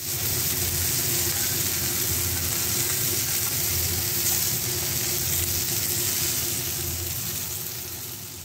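Marinated chicken drumsticks sizzling steadily as they fry in hot fat in a pan, the sizzle fading near the end.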